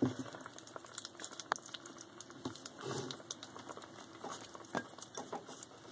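Several young puppies eating soft puppy mush: a patter of quick, irregular small clicks and smacks.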